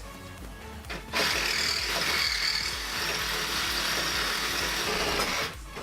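A power tool cutting through a rusted steel exhaust pipe at the flex-pipe weld. It makes a steady, high-pitched metal-cutting noise that starts about a second in and stops shortly before the end.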